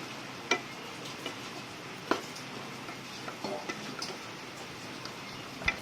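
A spoon stirring fried chicken pieces into thick masala in a pan, knocking sharply against the pan about four times over a steady low hiss.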